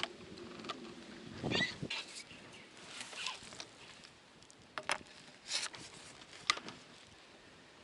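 Scattered clicks, light knocks and rustles of feeder-fishing tackle being handled and laid out, with a sharper click about five seconds in and another near six and a half seconds.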